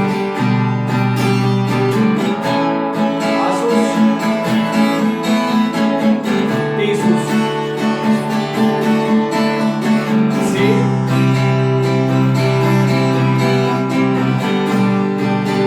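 Acoustic guitar strummed in a steady rhythm through a chord progression of C, G, A and D major, with the chords ringing on between strokes.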